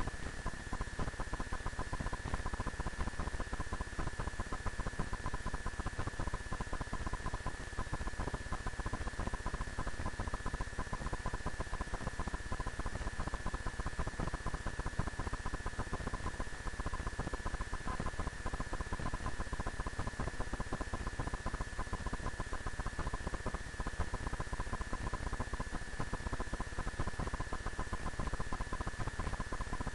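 Steady hiss and fine crackle with a constant high whine, the noise of the recording's own input rather than any sound event.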